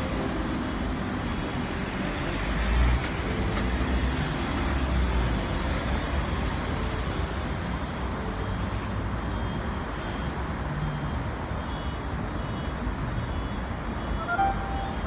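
Road traffic noise: the steady rumble of cars and larger vehicles passing on a busy road, swelling now and then as vehicles go by. A steady tone comes in near the end.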